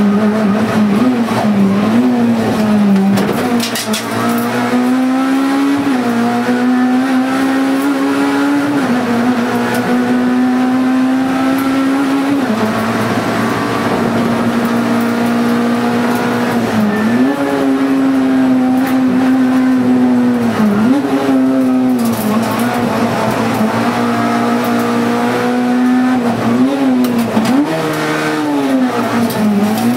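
Honda Civic Type R's four-cylinder engine heard from inside the cabin, driven hard up a hill-climb course. It is held at a steady high pitch that dips briefly and climbs back several times as the driver changes gear or lifts for corners.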